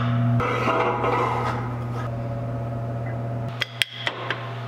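A steady low hum, with a few light metal clicks near the end as the arm of a splined front sway bar is fitted against the steel chassis frame.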